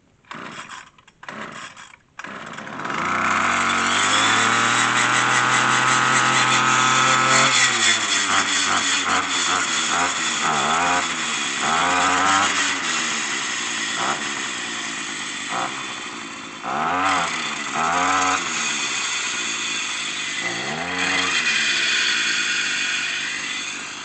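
Troy-Bilt gas brush cutter pull-started cold, with automatic choke: a few quick pulls on the starter cord, then the engine catches about two seconds in. It runs fast and steady, drops back to idle about seven seconds in, and is then revved up and down several times with the throttle.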